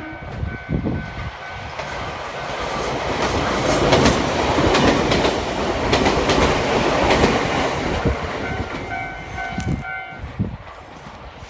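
Nagano Electric Railway local electric train passing over a level crossing: the rumble of wheels on rail builds over a few seconds, is loudest in the middle, then fades as the train moves off, with clacks from the wheels over rail joints. A level-crossing warning bell rings through it and is heard clearly again near the end as the train noise fades.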